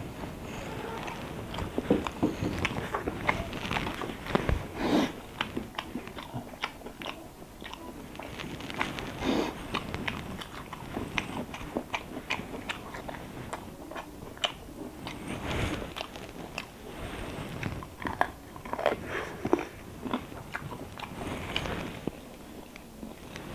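A man chewing and eating a rice meal by hand, close to the microphone: wet mouth smacks and irregular sharp clicks as he chews.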